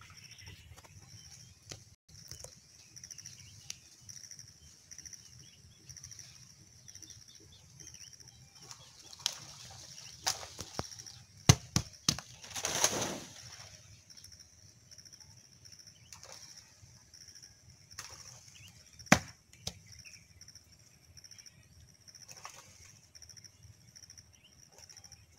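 Coconut palm fronds rustling as a climber works in the crown harvesting young coconuts, with scattered sharp knocks and one louder burst of rustling about halfway through, over a steady high hiss.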